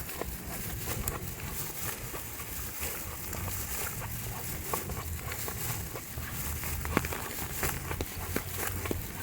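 Outdoor snowstorm ambience: wind buffeting the microphone as an uneven low rumble, under a steady hiss with scattered light ticks and taps.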